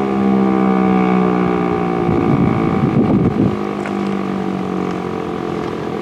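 Federal Signal Eclipse 8 electronic outdoor warning siren sounding a loud tone whose pitch slowly falls. A gusty rumble cuts across it about two seconds in for a second or so.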